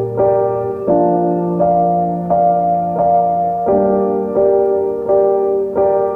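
Background music: a piano or electric-piano track playing a slow, even sequence of sustained chords, a new chord struck about every three quarters of a second.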